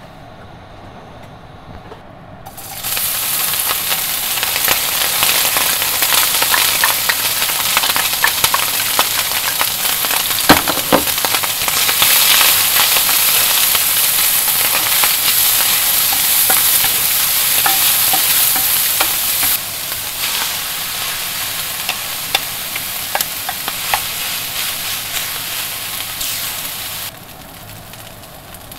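Chopped onion and diced meat go into hot oil in a stainless steel frying pan about three seconds in and sizzle loudly as they fry, with the clicks and scrapes of a wooden spatula stirring them. The sizzle drops a step a little past halfway and falls away near the end.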